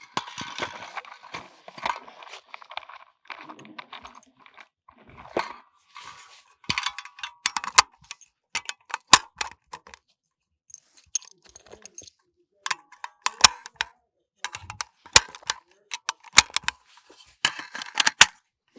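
Handling noise: a string of sharp clicks and rattles with bouts of rustling, coming in clusters.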